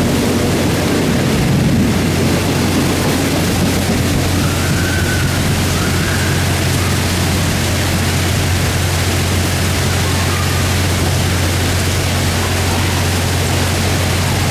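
Steady hiss of a heavy rain downpour. In the first couple of seconds the rumble of a JR 115 series electric train pulling away fades under the rain.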